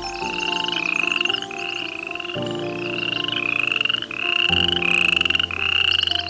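A steady run of short, pulsed animal calls, each rising slightly in pitch, repeating about every three-quarters of a second, over soft background music with sustained chords.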